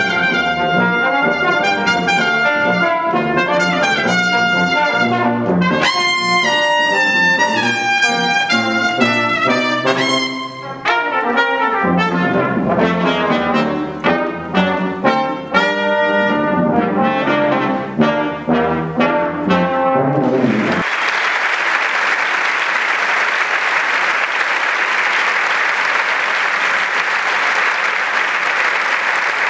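Brass trio of two trumpets and a tuba playing a lively piece, breaking into short separated chords in its last stretch and ending abruptly about 21 seconds in. Audience applause follows, steady to the end.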